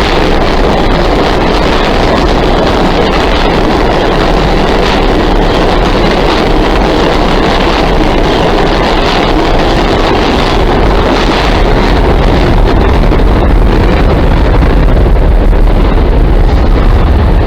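New York City Subway 3 train pulling out of the station: a loud, steady rumble of wheels on rail and traction motors, louder in the last few seconds.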